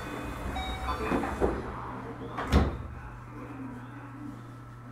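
Keio 8000 series train's sliding doors closing for departure, shutting with one loud thud about two and a half seconds in, over a steady low hum.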